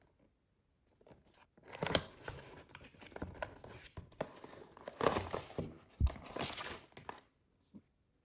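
Crinkling and tearing of packaging being handled, with several sharp clicks. It starts about two seconds in and stops about a second before the end.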